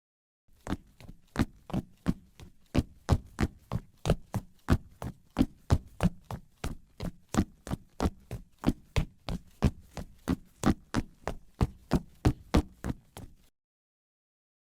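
Footsteps on a hard surface at a brisk, even pace of about three steps a second; the steps stop about a second before the end.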